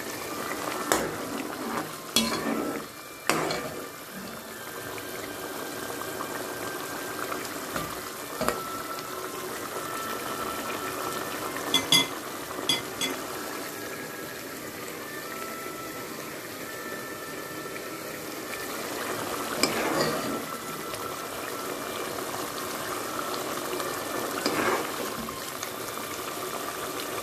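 Lamb stew simmering in a pot, bubbling steadily, with scattered clinks of a spoon against the pot and plate: a few near the start, a quick cluster about halfway, and more near the end.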